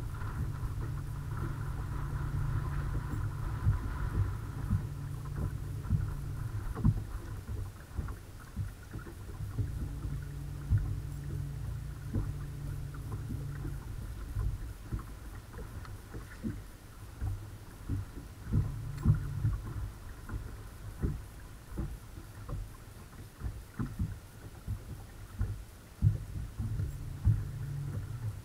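Electric bow-mount trolling motor on a bass boat humming low, cutting in and out several times, with a faint whine in the first few seconds. Short low knocks and slaps are scattered throughout.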